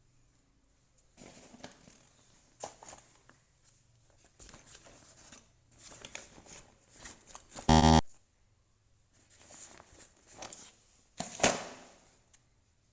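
A pair of wire cutters being handled and worked: a run of scattered clicks, scrapes and rustles. There is a short, very loud pitched blip just before eight seconds, and a sharp snap about eleven and a half seconds in.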